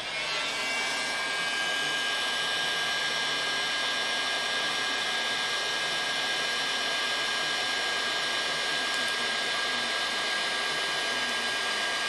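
1,500-watt Mastercraft heat gun running, blowing hot air onto a steak: a steady rushing blow with a thin high whine. It comes up to speed in the first second, then holds even.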